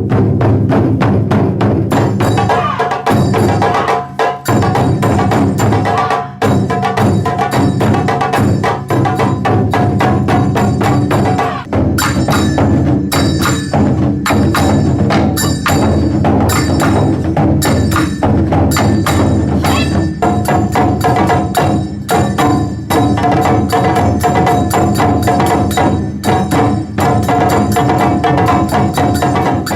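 Taiko drum ensemble playing, deep drum beats under a dense run of sharp stick clicks, with a held higher note sounding through much of it.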